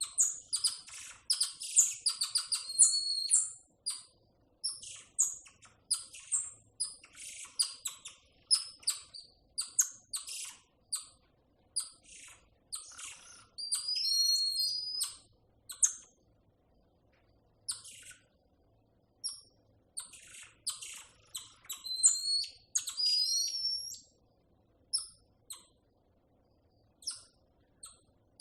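A troop of tamarin monkeys calling: rapid, high-pitched chirps and twitters, with a few longer whistled calls that slide up and down in pitch.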